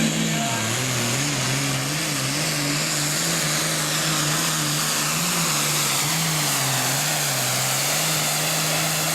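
Pulling tractor's diesel engine running hard, its pitch wavering up and down, over a loud hiss.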